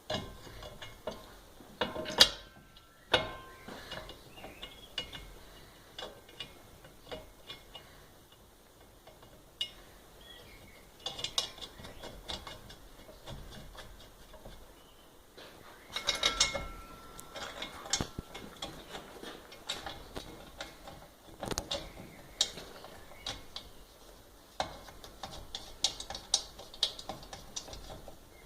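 Irregular metallic clicks, taps and clanks as steel parts are handled and worked, with a couple of short ringing tones near the start and about halfway through.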